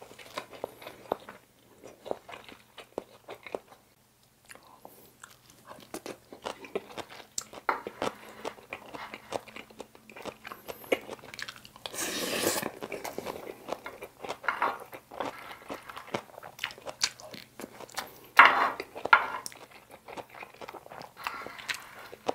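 Close-miked chewing and mouth sounds of someone eating soy sauce egg rice, with many small wet clicks, and a spoon scraping rice grains across a metal tray. There is a louder noisy stretch about twelve seconds in and sharp louder sounds about eighteen seconds in.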